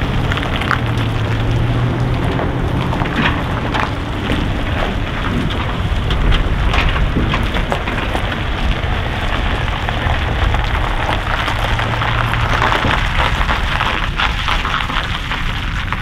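Truck rolling under tow with a steady low engine rumble and dense crackling noise: the 1984 Peterbilt 362 cabover's Caterpillar 3406B diesel is being pull-started, turned over by the road wheels because its starter is bad.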